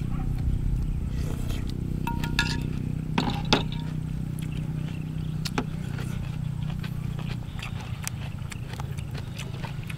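Eating sounds: chewing, with scattered clicks and scrapes of fingers, prawn shells and food on plastic plates. A steady low hum runs underneath and fades about seven and a half seconds in.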